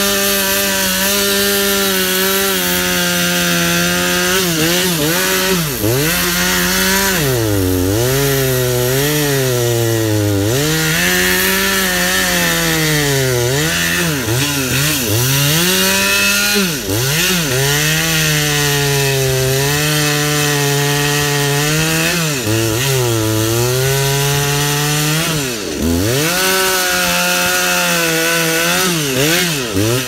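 Chainsaw cutting into the base of a mesquite trunk at full throttle, its engine pitch sagging for long stretches as the chain bites into the wood and climbing back as it eases. Several times the throttle drops for a moment and the engine revs straight back up.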